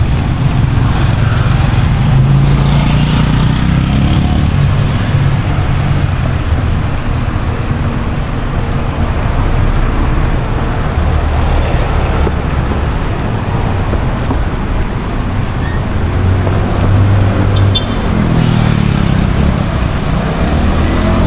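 Street traffic: vehicle engines running and passing close by, over a steady wash of road noise, with engine hum swelling as vehicles go past.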